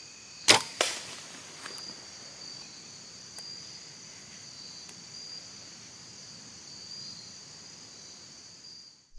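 A bow shot: a sharp, loud crack about half a second in, then a second crack a moment later as the arrow strikes the whitetail deer. A steady chorus of crickets goes on underneath.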